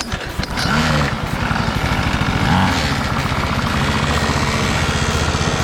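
Pocket bike's small engine running just after being started, revving up about half a second in, then holding a steady buzzing note with another short rev around the middle.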